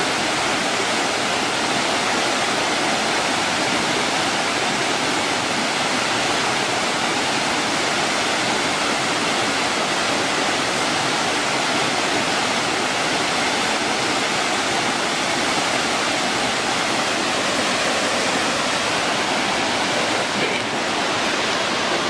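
A waterfall pouring into a plunge pool, with the creek running over rocks below it: a steady, unbroken rush of water.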